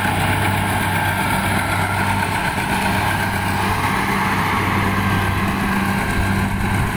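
Rice combine harvester running steadily: a constant low engine hum under an even mechanical noise from the machine.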